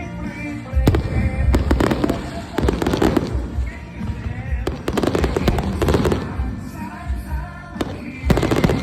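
Aerial fireworks shells launching and bursting in clusters of sharp bangs every second or two, over music playing in the background.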